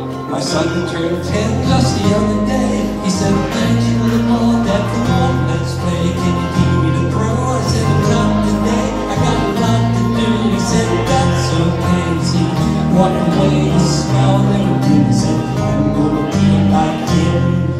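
Two acoustic guitars strumming chords together, with a moving bass line under the strums.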